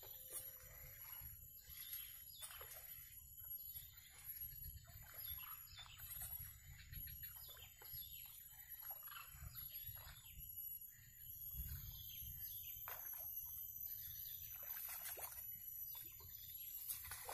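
Birds calling, many short falling chirps coming irregularly several times a second, over a steady high-pitched whine and a low rumble.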